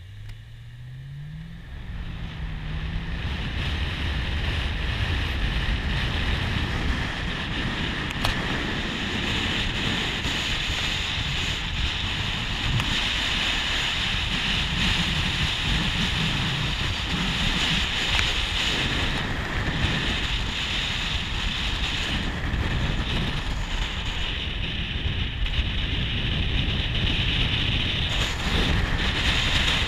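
Car engine pulling away from a stop, its pitch rising twice in the first few seconds, then giving way to steady wind and tyre noise at road speed that builds and holds loud.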